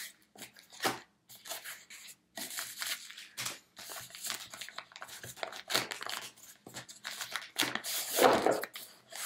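Cardboard box flaps and a plastic bag being handled during an unboxing: an irregular run of short scrapes, rustles and crinkles, loudest near the end as the bagged item is lifted out.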